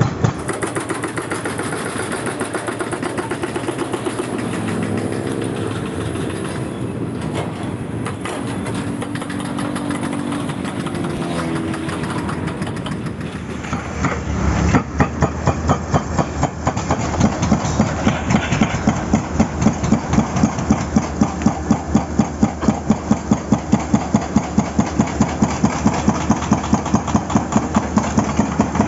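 Excavator's diesel engine running, and from about halfway a hydraulic breaker hammering in a fast, steady rhythm of blows.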